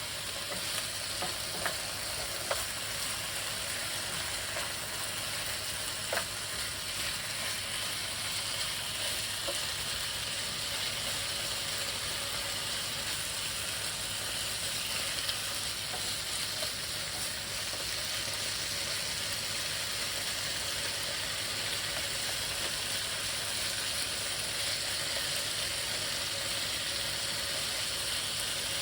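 Pieces of cut-up bird frying with onion and garlic in a hot pan, a steady sizzle. A few sharp clicks sound in the first few seconds.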